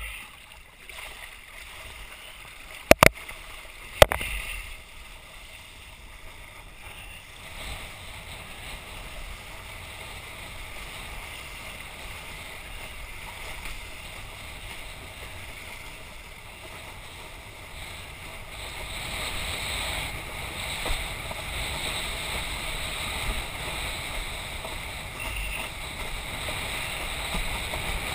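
Wind and water rushing past a windsurfer under sail, heard through a helmet-mounted camera: a steady rushing noise with two sharp knocks a second apart near the start. The rushing grows louder past the middle.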